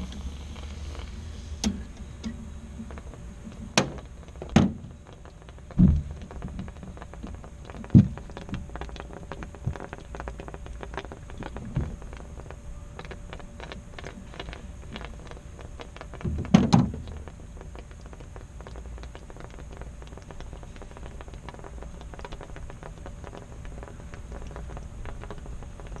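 Scattered knocks and thunks, about nine over the first two-thirds, over a steady low hum.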